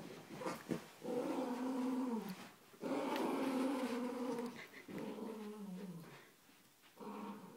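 Dogs growling in play during a tug-of-war over a sock between a Doberman puppy and a miniature pinscher: three long growls of a second or two each, each dropping in pitch as it ends.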